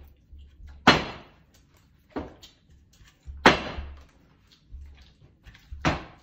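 Plastic water bottle flipped and hitting the table with sharp knocks, four times about a second or two apart, the loudest about a second in and again past halfway.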